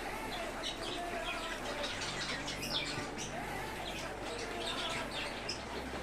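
Budgerigars chirping and warbling: a busy run of quick short chirps and chattering notes, over a steady low hum.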